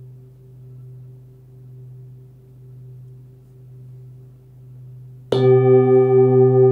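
A 28 cm forged Tibetan singing bowl tuned to about 126 Hz (B) hums faintly with a slow wavering pulse. About five seconds in it is struck and rings loudly with many overtones and a steady wah-wah beating.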